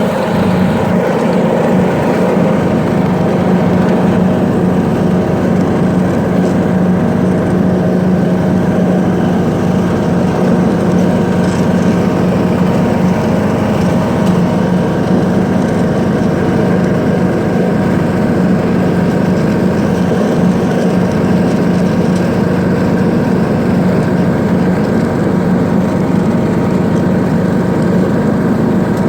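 John Deere D105 riding lawn mower's single-cylinder engine running steadily at constant speed.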